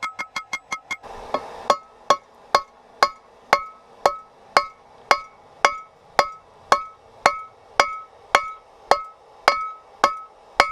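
Hammer blows on a ringing anvil while rebar is forged. The first second has quick light taps, about five a second. After a brief rush of noise, the blows come steadily at about two a second, each followed by the anvil's ring.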